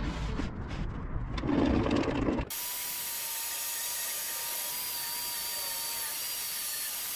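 DeWalt 10-inch table saw running and cutting a sheet of plywood. About two and a half seconds in, the sound changes abruptly to a steady, even hiss with a faint whine.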